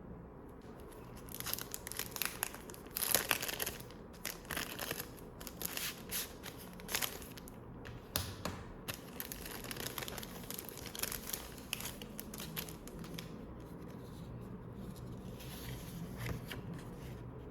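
Irregular bursts of crinkling and rustling from a thin crinkly sheet being handled, with a few sharper crackles, heaviest in the first half and again near the end.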